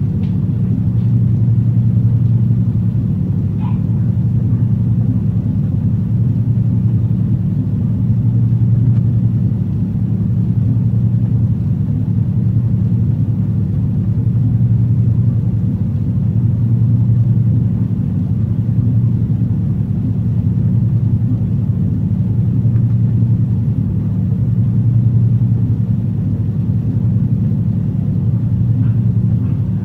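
Steady low electrical hum of a running appliance, swelling and fading slowly about every two to three seconds.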